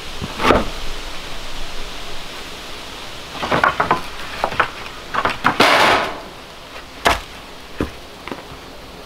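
Dry weathered wooden boards knocking and clattering against each other as they are pulled off a pile and stood up in a stack. A longer rasp of wood sliding over the pile comes a little past halfway, followed by a sharp knock of board on board.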